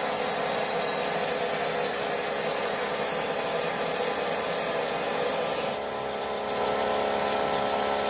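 Vapor blasting cabinet spraying, a steady loud hiss over a constant machine hum; about six seconds in the high hiss cuts off sharply and a lower rushing noise carries on.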